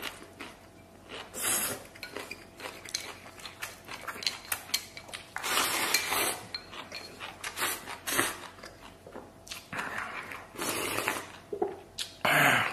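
A person eating tomato beef instant noodles: about six slurps spread a few seconds apart, with chewing and short clicks of utensils against the bowl in between.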